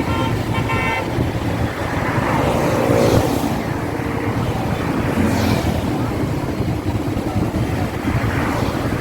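Road traffic: a steady rumble of engines and tyres, with vehicles passing by about three and a half and five and a half seconds in.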